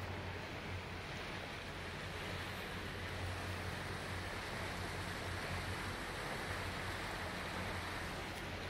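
Motorboat under way: a steady low engine hum with water rushing along the hull.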